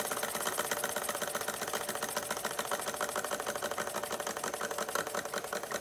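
Bing vertical live-steam toy engine running, together with the belt-driven tinplate workshop models it powers, making a rapid, even mechanical clatter as it is eased down to a more sedate speed.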